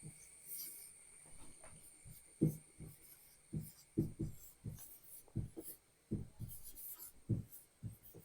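Someone writing by hand: a series of short, irregular strokes and taps on the writing surface as letters are written out.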